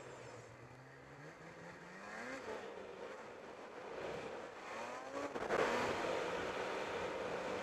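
Snowmobile engine being broken in, running under throttle on a trail ride. It rises in pitch as it accelerates about a second in and again midway, and grows louder in the last couple of seconds, with a rushing noise of track and wind.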